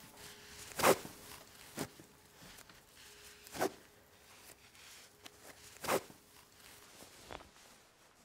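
Quick rustling swishes of clothing being handled, five in all, over a faint steady hum.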